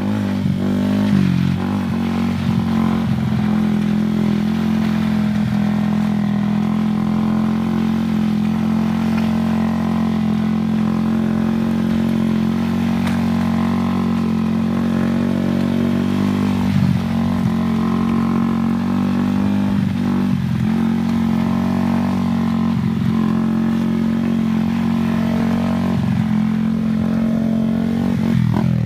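Yamaha Sniper 150's single-cylinder four-stroke engine held at steady revs as the motorcycle circles in tight banking turns, with a few brief dips in the engine note.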